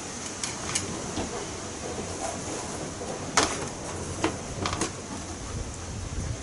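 A small hand trowel scraping and scooping moist compost out of a plastic bucket, giving a handful of short scrapes and knocks, the sharpest about three and a half seconds in.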